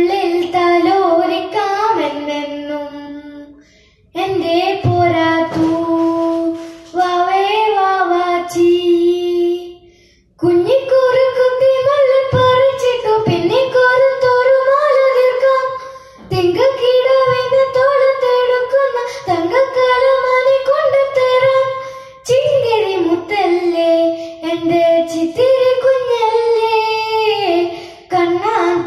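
A boy singing a Malayalam song solo with no instrumental accompaniment, in long phrases with short breaks for breath.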